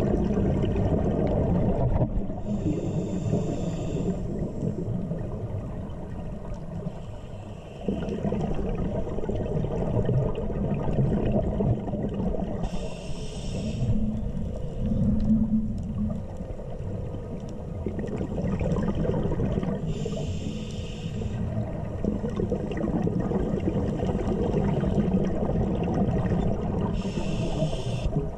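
Scuba diver's regulator underwater: a steady low rumble of the water, broken by four short bursts of exhaled bubbles about seven seconds apart, one per breath.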